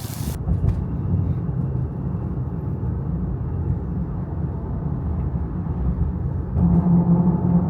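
A vehicle driving: a steady low rumble, with a humming tone that grows louder for the last second or so.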